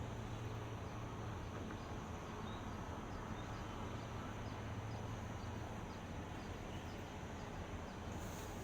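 Steady outdoor background noise with a low hum that fades about halfway through, and faint, quick high chirps repeating through it.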